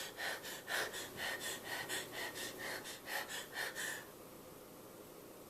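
A person panting quickly like a dog, in short noisy breaths about four a second, then stopping abruptly about four seconds in.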